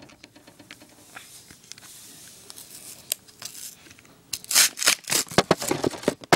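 Close handling noise: rustling and scraping with scattered clicks, getting busier and louder in the last two seconds.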